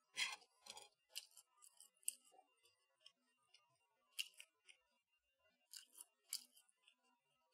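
Close-miked crisp crackles and clicks from eating and handling breaded, air-fried chicken kievs, in scattered clusters: crunchy crumb coating being chewed and fingered.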